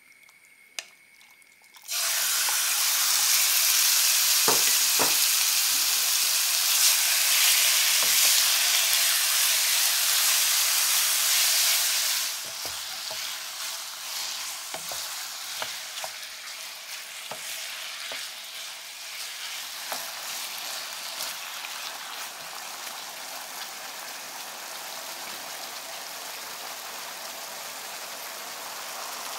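Paprika-marinated chicken breast pieces land in a hot oiled nonstick pan about two seconds in and start sizzling loudly. After about ten seconds the sizzle eases and goes on more quietly, while a wooden spatula stirs the pieces with scattered light knocks against the pan.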